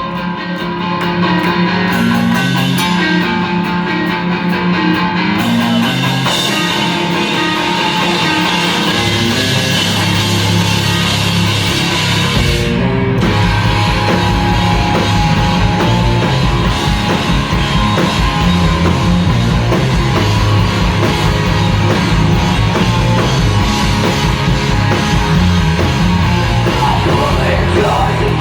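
A rock band playing live: electric guitars, bass and drums, loud and filling the room. A guitar-led opening fills out with bass, and the full band with driving drums comes in about twelve seconds in.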